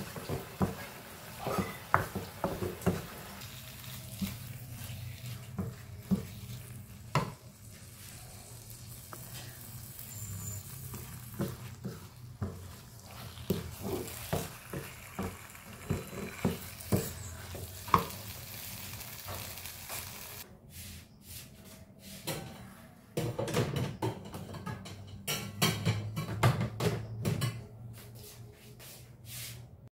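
Wooden spatula stirring and scraping a thick rendang paste in a nonstick wok, with irregular knocks against the pan, while the paste fries. The stirring pauses about two-thirds of the way through, then picks up again.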